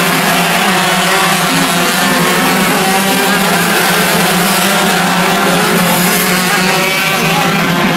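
Two-stroke shifter kart engines running hard at high revs, a loud steady drone with no letup.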